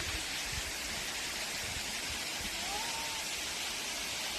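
Steady hiss of rushing water.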